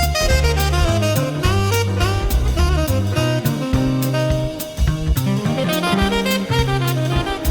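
Background music: a jazz tune led by saxophone over a steady drum-kit beat.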